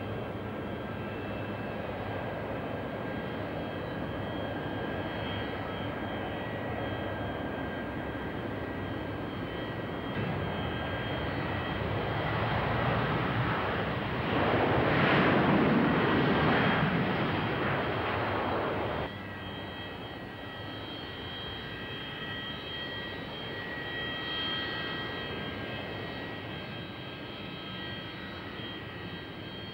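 Jet airliners' engines running as they taxi: a steady rushing noise with high, steady whining tones. From about ten seconds in the noise grows much louder while an airliner rolls along the runway, then drops abruptly about nineteen seconds in and settles back to a quieter whine.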